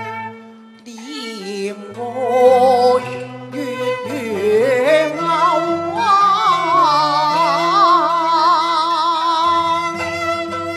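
A woman sings a Cantonese opera melody into a microphone over instrumental accompaniment, after a brief lull just under a second in. From about six seconds in she holds a long note with wide vibrato.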